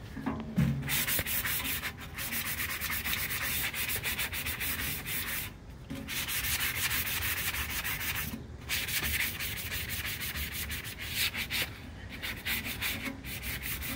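Hand sanding of rust on the steel base of an old wheel balancer: fast back-and-forth scraping strokes of an abrasive pad on metal, with brief pauses about five and a half, eight and a half and twelve seconds in.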